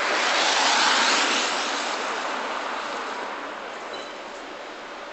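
A vehicle passing close by on the street: a rush of road noise that swells to its loudest about a second in and then fades away.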